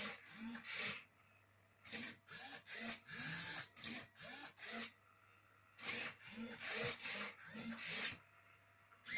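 Hobby servos on a Rubik's cube robot whining as they swing the grippers, while the plastic cube's faces turn and scrape. The moves come in three runs of quick strokes with short pauses between them.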